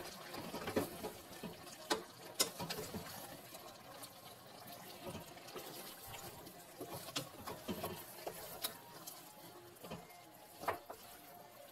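Wooden spatula stirring raw diced potatoes in a stainless steel pot: soft scraping and shuffling with scattered sharp clicks and knocks, the loudest near the end.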